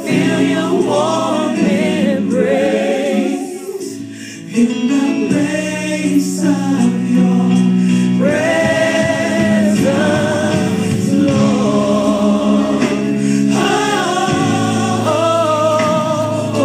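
Gospel music: a choir singing with long held notes over a steady instrumental accompaniment, with a brief drop in level about four seconds in.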